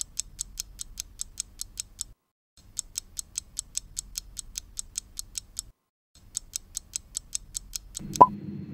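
Clock-ticking sound effect for a countdown timer: sharp, even ticks about six a second, with two short breaks in the loop. Near the end a short rising tone sounds.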